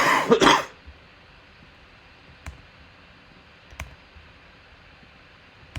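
A brief voice-like burst right at the start, then three single sharp clicks spaced more than a second apart, over steady room hiss.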